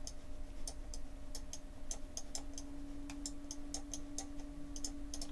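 Computer mouse button clicking in quick, irregular succession, several clicks a second, pressed and released for each pen stroke while drawing letters in a paint program. A faint steady hum runs underneath.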